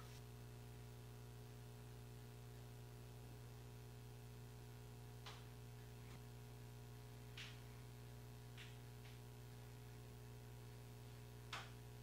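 Near silence: a steady low electrical hum, with a few faint short clicks scattered through, the loudest near the end.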